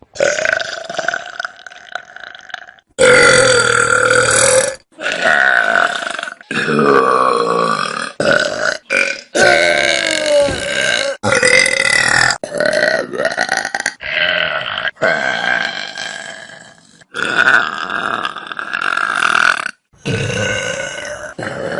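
A string of loud human burps, about a dozen in a row, some long and wavering in pitch, each cut off abruptly as the next begins.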